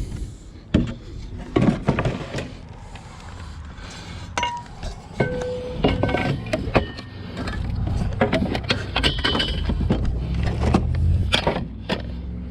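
Junk being rummaged through and handled in a curbside pile: a string of irregular knocks and clatters, with a few short metallic clinks that ring briefly near the middle.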